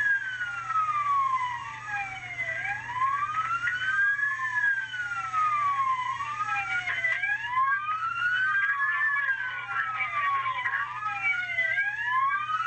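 Police car sirens on wail, two of them out of step, each slowly rising and falling in pitch so that their sweeps cross, over a steady low hum.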